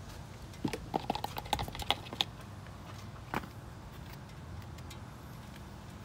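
A quick run of light plastic clicks and taps for about a second and a half, then one more tap a second later, as a plastic oil funnel is pulled out of a motorcycle's oil fill spout and set down with the oil bottle.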